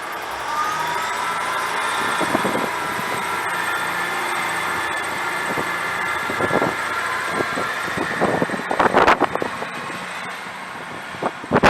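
Electric train running at the station, its motor whine rising in pitch over the first second or two and then holding steady. Irregular knocks come through, heaviest about nine seconds in and again near the end.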